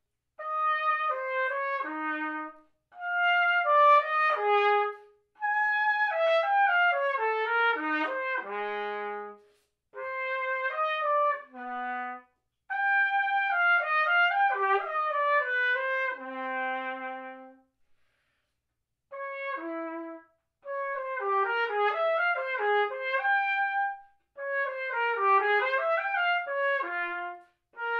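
Unaccompanied solo trumpet playing quick running passages in short phrases, separated by brief pauses, with several phrases ending on a held low note.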